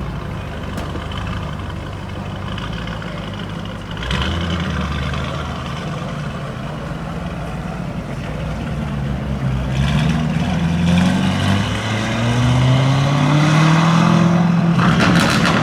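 Lamborghini Urus twin-turbo V8 with a Novitec aftermarket exhaust running at low revs, then revving up with a rising pitch for the last third, loudest near the end. It closes with a quick burst of sharp exhaust crackles.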